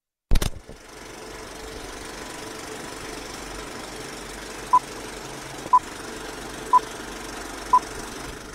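Film projector sound effect: a loud click as it switches on, then the projector's steady whirring. Four short high beeps, a second apart, come in the second half.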